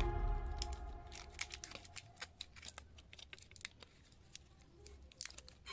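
Background music fading out, then faint, irregular clicks, taps and scrapes of hands and small tools working on a smartphone during a battery replacement.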